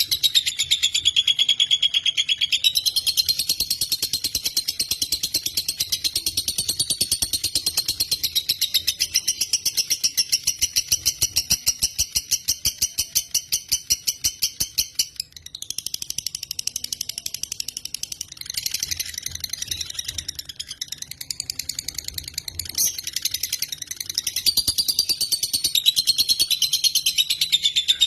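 Lovebird (Agapornis) singing a long, rapid chattering trill of high, fast-repeated chirps, faltering briefly about halfway through and then carrying on.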